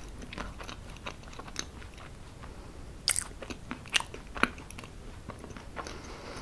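Close-up mouth sounds of someone chewing soft chocolate mousse cake: wet smacks and clicks at irregular intervals, with a few louder ones about three to four and a half seconds in.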